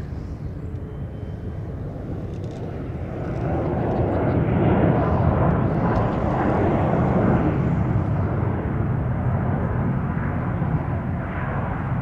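Boeing 737 MAX 8's CFM LEAP-1B turbofans during the landing rollout: a steady jet rush that swells about three seconds in, typical of reverse thrust being applied after touchdown, then eases a little.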